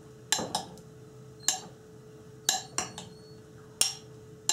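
A metal spoon clinks against a glass mixing bowl as sliced mushrooms in vinaigrette are stirred: about seven sharp clinks, irregularly spaced.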